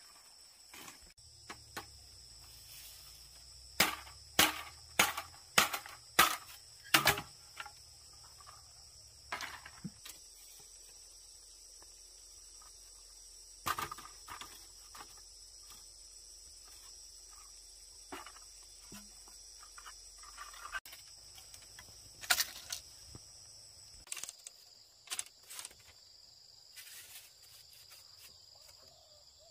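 Sharp knocks of bamboo being worked by hand: a run of about six strikes roughly half a second apart a few seconds in, then scattered single knocks. Steady high insect drone underneath.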